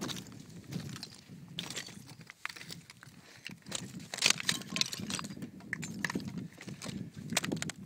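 Footsteps on a scree field of loose, flat rock slabs: the plates clink and clatter underfoot in an irregular run of knocks, busier and louder in the second half.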